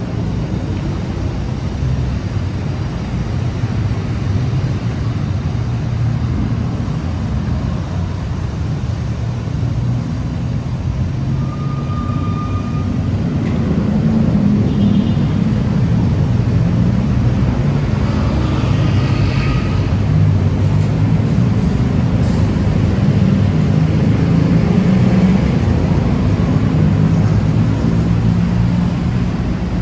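City road traffic, cars and motorbikes running and passing, a steady low rumble that grows louder about halfway through. A brief high tone sounds a little before the middle.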